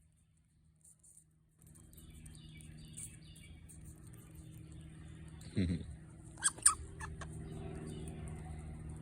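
Grey squirrel making squeaks and short cries while snatching a nut from another squirrel, with two sharp clicks past the middle, the loudest moment. A steady low hum runs underneath after the first second and a half.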